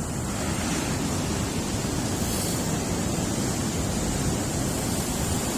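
Steady rushing noise of ocean surf on a beach, mixed with wind on the microphone.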